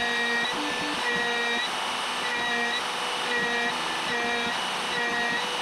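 DIY CNC router milling aluminium plate: a compact trim router spindle drives an end mill through an adaptive clearing pass, making a steady high-speed motor whine with cutting noise. A pitched whine comes in and out about once a second as the tool loops through the cut.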